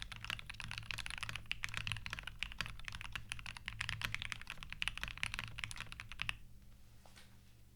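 Fast, continuous typing on a Monstargear Alu XO V3 mechanical keyboard with lubed Alpaca linear switches, ePBT keycaps and a brass plate; the keystrokes stop about six seconds in.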